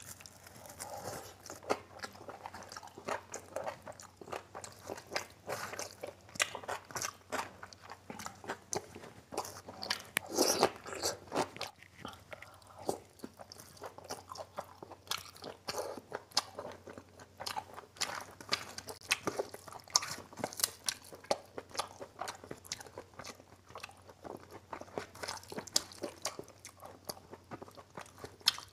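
Close-up chewing and crunching of a mouthful of rice, mutton curry and crisp papad, with many short crackles and wet mouth sounds throughout.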